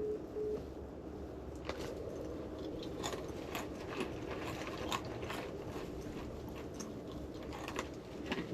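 A dog chewing and crunching nuts: a run of irregular sharp cracks and crunches.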